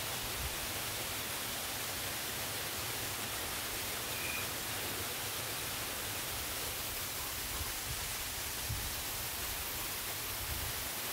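Steady rush of waterfall and stream water: an even hiss that does not change.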